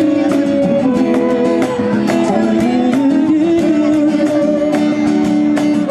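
Acoustic guitar strummed in a steady rhythm, with long held melody notes over it, in a break between sung lines of a slow pop love song.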